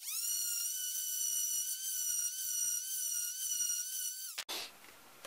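Electric random orbital sander running at full speed against a pine bowl, a steady high-pitched whine. The whine dips in pitch and stops about four and a half seconds in.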